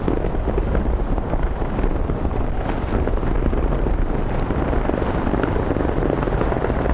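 Strong wind buffeting the microphone: a loud, steady rumbling noise.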